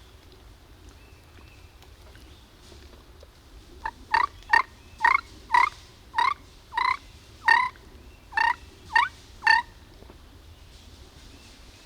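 Turkey yelping: a run of about eleven short, evenly spaced notes, about two a second, starting about four seconds in and stopping near the end.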